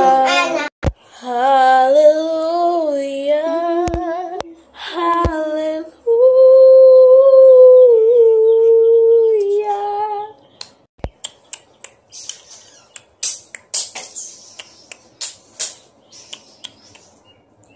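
A child singing a melody without clear words, ending in one long held note about six to ten seconds in; then, for the last several seconds, a run of short, sharp clicks.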